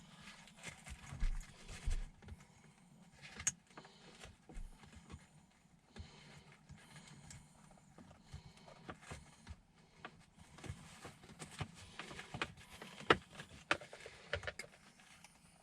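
Faint, irregular plastic clicks and knocks from handling a gearshift knob and feeding its wired connector down into the shifter to plug it in.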